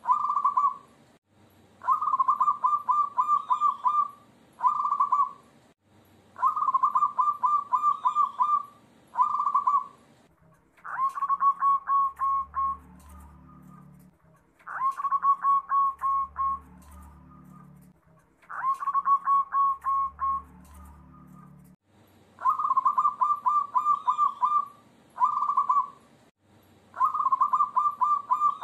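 Zebra doves (perkutut) singing: repeated phrases of quick staccato coos, each a fast run of notes followed by a shorter burst, about every four seconds. In the middle stretch the phrases open on a higher note and have a deeper sound beneath them. The songs of several birds are joined into one lure recording to draw other zebra doves into calling.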